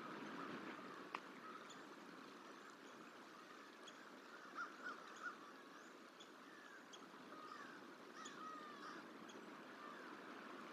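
American crow cawing three times in quick succession around the middle, with fainter calls a few seconds later: a crow mobbing a juvenile bald eagle to run it off. Steady faint outdoor background hiss, with one sharp click about a second in.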